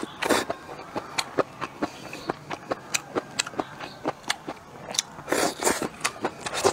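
Close-miked chewing and biting of crisp stir-fried bamboo shoots: a steady run of small crunching clicks, with a few louder, longer bites or slurps just after the start and about five seconds in.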